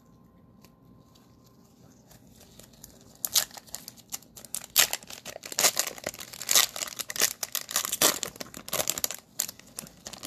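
Cellophane wrapper of a trading-card cello pack crinkling and tearing as it is opened by hand, a dense run of crackles starting about three seconds in.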